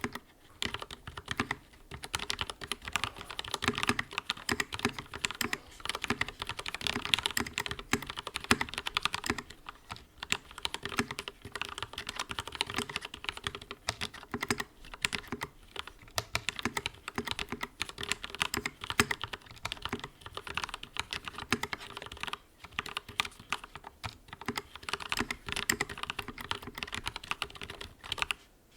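Continuous fast typing on a YUNZII KC84 hot-swappable mechanical keyboard fitted with lubed switches and modded stabilizers, a dense, uneven stream of keystroke clacks that stops just before the end.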